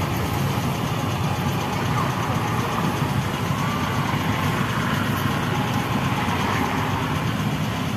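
Steady low rumble of street background noise, with faint distant voices.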